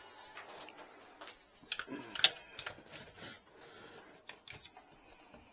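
Handling noises: rustling and light knocks as a cloth mat is spread on the floor in front of a kitchen sink cabinet, with one sharp click a little over two seconds in.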